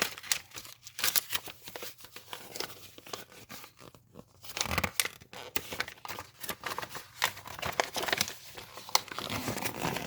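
Crinkling and tearing of an instruction packet's wrapping and papers as it is opened and unfolded by hand, a run of sharp crackles.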